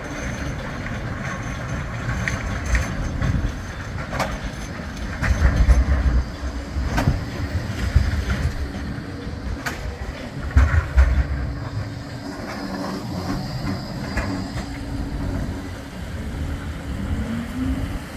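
Bombardier Flexity 2 tram passing close by, its wheels clicking over the rail joints and pointwork, with two heavier rumbles as the bogies roll past. A faint rising whine comes in near the end.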